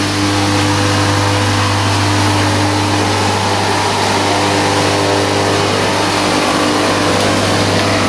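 Steady mechanical drone from an air vent blower: a low hum under a whooshing rush of air, with a few held tones, one of which drops out about seven seconds in.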